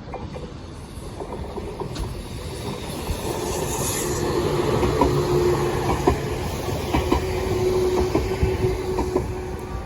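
Nagano Electric Railway 'Yukemuri' electric train passing, growing louder to a peak around the middle, with its wheels clacking over rail joints and a steady whine.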